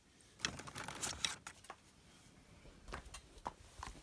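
Light clicking and rustling of hands handling a small plastic control knob and a Stanley knife: a cluster of small clicks about half a second in, then a few single clicks near the end.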